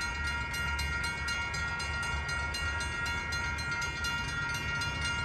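Railroad crossing warning bells ringing in rapid, evenly spaced strikes, signalling an approaching train, over a low steady rumble.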